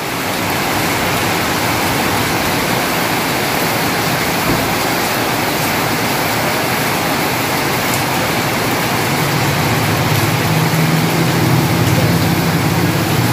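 Heavy rain falling steadily, a dense even hiss of rain on a concrete yard. About nine seconds in, a low steady hum joins it.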